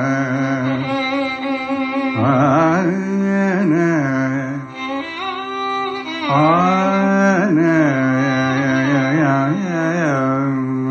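Carnatic male voice singing ornamented, sliding phrases, with a violin following the melody, over a steady drone. There are no drum strokes.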